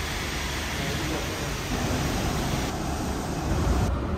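Heavy rain falling, a steady hiss with a low rumble underneath; the hiss thins abruptly about three seconds in.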